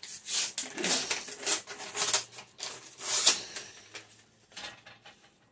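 Paper packaging rustling and crinkling as it is handled and opened, in a quick run of scratchy rustles that thins out after about four seconds.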